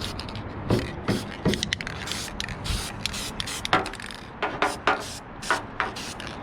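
Aerosol can of black spray paint hissing in a series of short bursts.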